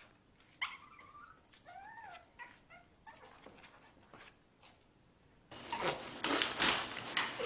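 Puppy whimpering softly, with a few short whines that rise and fall in pitch in the first seconds. Near the end, louder scratching and scuffling comes in, as a puppy paws at a sofa trying to climb it.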